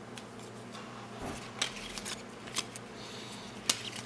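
Trading cards being flipped through by hand, three light snaps of card edges about a second apart as each card is moved off the stack.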